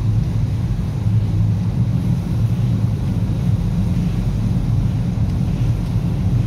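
Steady low rumble of Polson #2 steam locomotive and UP 96 moving slowly along the track, with no distinct exhaust beats.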